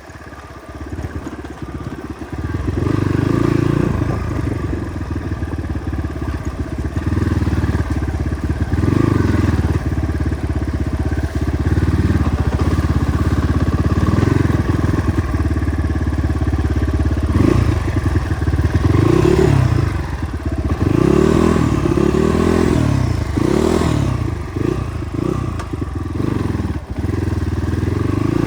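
Motorcycle engine picking up about two seconds in and running on, its revs rising and falling over and over, most often in the second half.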